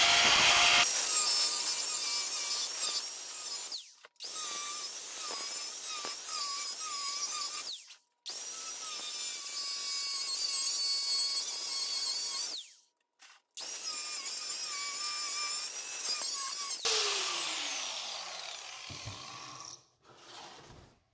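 A handheld power tool cutting into the plastic base of a John Deere garden-tractor seat, in several runs of a few seconds each separated by brief stops. Near the end the motor's tone falls as it winds down.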